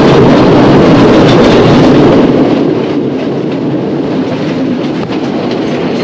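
Cold mountain spring water gushing from an open tap, a loud steady rushing and splashing, close to the microphone. It gets somewhat quieter about two seconds in.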